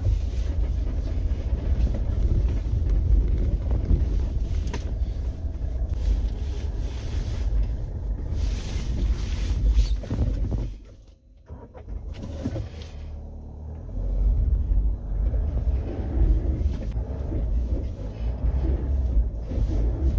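Mahindra Thar's engine and drivetrain rumbling low and steady, heard from inside the cabin as it drives. The sound drops away a little past halfway and comes back about three seconds later.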